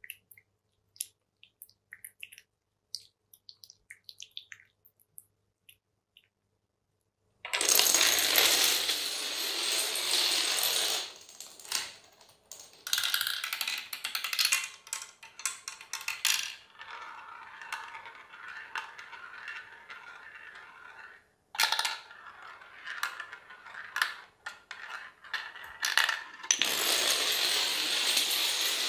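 Long chain of small coloured dominoes toppling in a chain reaction: a fast, continuous clatter of many small clicks that starts about seven seconds in, thins out a few times and grows loud again near the end. Before it, only a few scattered light clicks.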